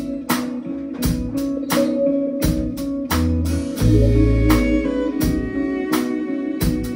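Live jazz-fusion band playing: drum kit hitting sharp syncopated accents over long electric bass notes, with electric guitars and violin.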